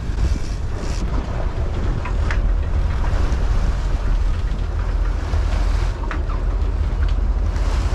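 Sportfishing boat's engines running steadily, with wind buffeting the microphone and sea water washing past the hull.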